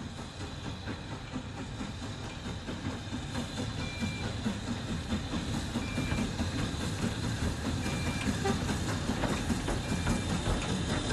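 Steam locomotive hauling a train, a steady low rumble of wheels on rail mixed with the hiss of steam, growing slightly louder.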